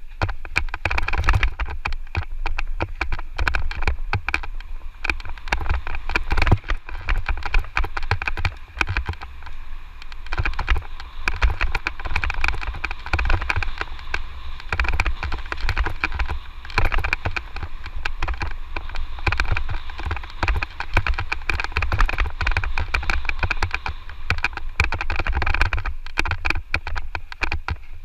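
Electric mountain bike riding down a rough dirt trail: constant rattling and knocking of the bike over bumps, tyre noise on dirt and wind rumbling on the microphone.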